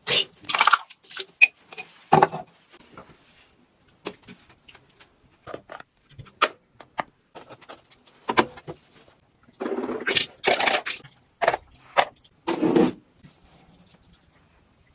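Household handling noises: a string of knocks, clatters and short scrapes, with longer scraping or rustling bursts about ten and thirteen seconds in.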